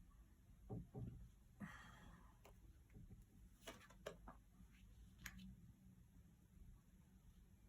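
Tarot cards being handled on a table, very faint: a few soft clicks and a brief rustle of cards about two seconds in, over quiet room tone.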